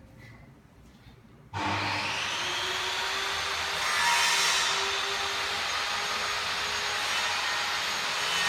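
A motor-driven machine starts abruptly, about a second and a half in, and runs steadily with a loud rushing hiss and a faint hum, swelling briefly near the middle.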